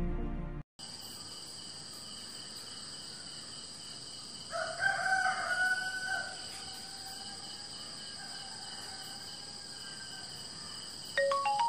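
A rooster crowing once, a long call about four seconds in that trails off slowly, over a steady high drone of insects. Light chiming mallet notes start just before the end.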